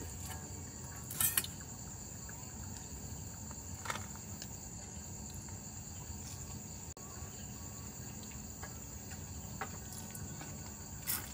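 Steady high-pitched chorus of crickets, broken by a few short clicks and taps: about a second in, around four seconds, and near the end.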